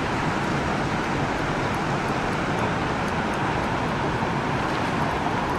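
Steady rushing noise of river water flowing over a shallow rocky riffle.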